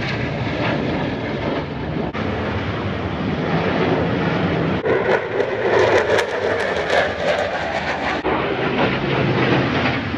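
Jet noise from USAF Thunderbirds F-16 fighter jets flying past: a steady, loud rushing roar, loudest about two-thirds of the way through.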